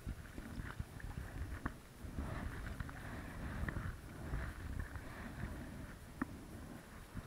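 Stand-up paddle strokes through lake water, a swelling swish with each pull, over a low rumble on the microphone, with a couple of sharp knocks.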